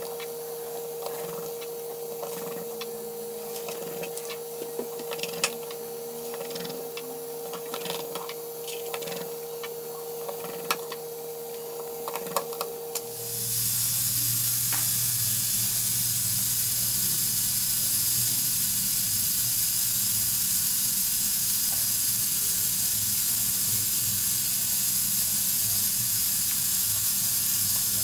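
Light clicks and taps of small plastic and metal phone parts being handled and pried, over a faint steady tone. About halfway through, this gives way abruptly to a loud, steady, high-pitched hiss.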